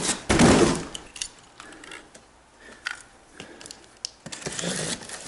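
A brief rustle and thump of handling in the first second, then scattered small clicks and light scraping as a utility knife is worked at a taped cardboard box.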